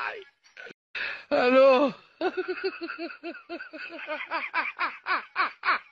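A person laughing in a fast run of short "ha" bursts, about five a second. About a second and a half in it is broken by one loud cry that rises and falls in pitch.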